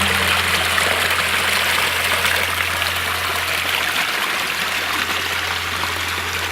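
Small creek running: a steady rush of flowing water.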